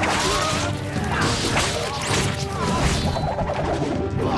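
Film sword-fight sound effects: rapid sword swishes and hits, one after another, over a music score.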